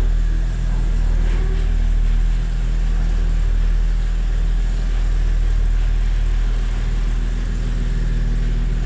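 Engine of a large articulated off-road vehicle running steadily at low revs as the vehicle creeps forward, a deep even hum.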